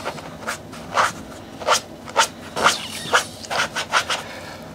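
Scrubbing strokes against the sole of a sneaker during cleaning, a scratchy rasp repeated about two times a second.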